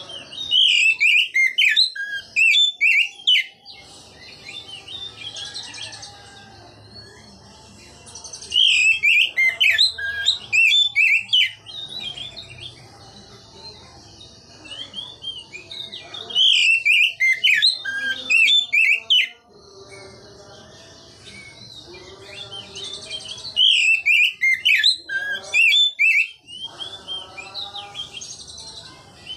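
Oriental magpie-robin singing loud, clear ngeplong phrases. Four bursts of rapid whistled notes, each about three seconds long, come about every seven seconds, with softer twittering in between.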